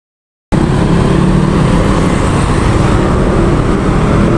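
Road traffic noise, steady and loud with a heavy low rumble, cutting in abruptly about half a second in.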